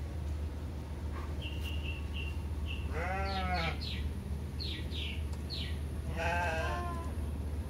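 Two drawn-out, arching animal calls about three seconds apart, like bleats. Between them come short high chirps and quick falling whistles.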